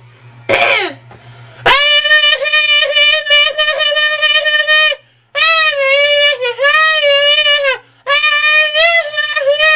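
A man's voice singing long, high-pitched wordless held notes in three phrases, each wavering slightly in pitch. Before them, about half a second in, comes a short vocal slide falling in pitch.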